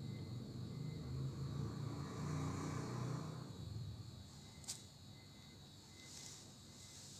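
Cat purring, a low rumble that fades out after about four seconds, over a faint steady high-pitched hiss. One short click about halfway through.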